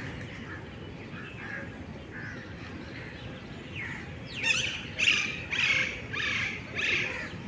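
Birds calling: soft chirps at first, then from a little past halfway a run of about five loud, harsh squawks in quick succession.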